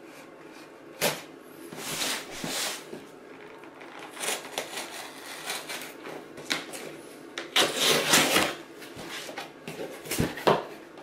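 Chris Reeve Sebenza folding knife slicing through packing tape on a cardboard box, with the cardboard scraping and rustling in several bursts and a few sharp clicks, the loudest about eight seconds in. Near the end the box flaps are pulled open. An air-conditioning blower hisses steadily underneath.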